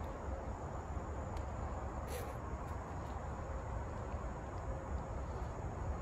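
Steady outdoor background of low rumble and hiss, with a faint high insect trill throughout and one brief high chirp about two seconds in.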